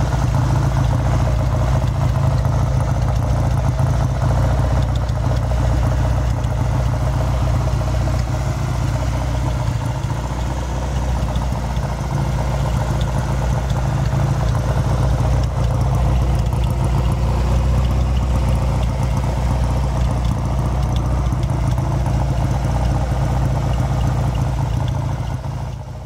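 An engine idling steadily, a deep, even running sound with no change in speed.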